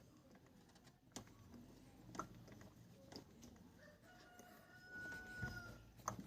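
Faint scattered clicks and knocks. About four seconds in, a distant rooster crows once, a call held for about two seconds.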